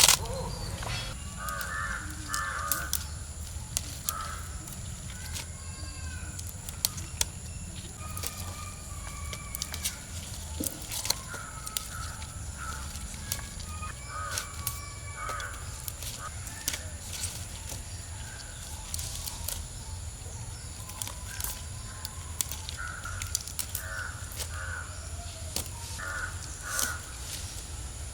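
Crows cawing on and off in short calls, over a steady low background hum, with scattered sharp clicks throughout.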